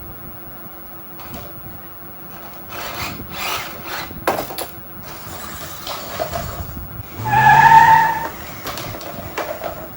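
Small electric motors and gearboxes of RC toy construction vehicles whirring, with scraping and rubbing and a sharp click midway. Near the end a motor whine rises in pitch and is the loudest sound.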